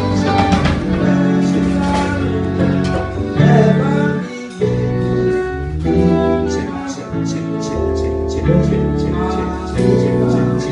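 A live band playing: guitar, violin, keyboard and drum kit, with a voice singing over them. Drum hits come more clearly in the second half.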